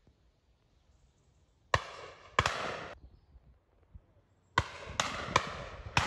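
Shotguns firing at driven pheasants. Two shots come about two-thirds of a second apart near two seconds in, then three more in quick succession near the end, each with a ringing echo.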